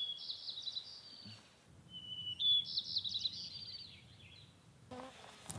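A songbird singing two phrases, each starting on a clear held whistle and breaking into a quick jumble of higher notes, over soft outdoor background noise.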